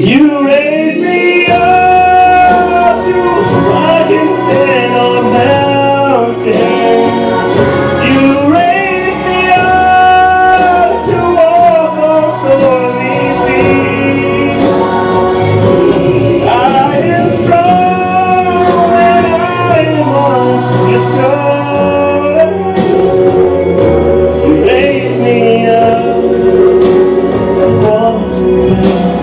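A man singing a slow song into a handheld microphone, holding long notes and sliding between them, over instrumental accompaniment with sustained chords.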